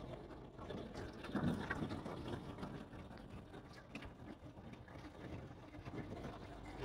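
Cabin noise of a vehicle driving over a rough dirt and gravel road: a steady rumble with a few knocks and rattles as it bumps along.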